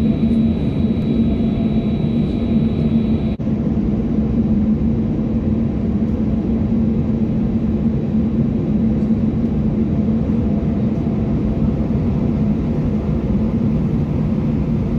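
Steady cabin drone of a jet airliner on the ground after deicing, heard from inside the passenger cabin, with a constant low hum under it. A brief dropout about three seconds in, then the same drone goes on.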